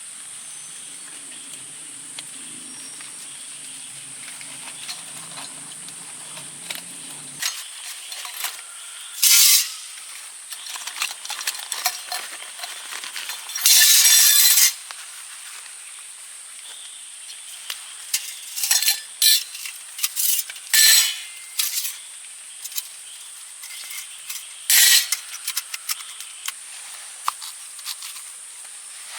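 Metal camp cookware clinking and scraping, with several short hissing bursts spread through it.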